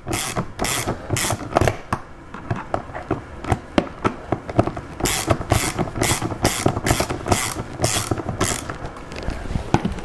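Ratchet wrench clicking through a long socket extension as it backs out a screw, in runs of sharp clicks that are loudest and about three a second in the second half.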